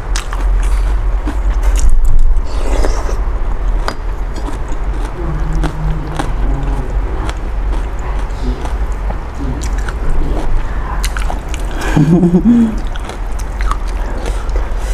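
Close-miked eating of a bowl of Thai boat noodle soup: noodles slurped and chewed, with chopsticks and a spoon clicking against the plate. The loudest stretch of eating comes about two seconds in.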